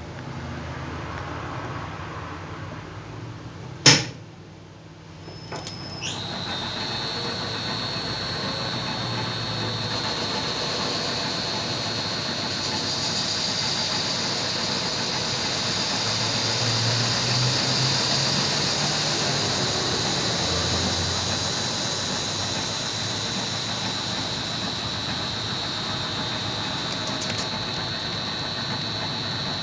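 A machine in a workshop for turning hydraulic seals: a sharp click about four seconds in, then the machine starts up. Its whine rises quickly and settles into a steady high-pitched whine with a hiss beneath, running on.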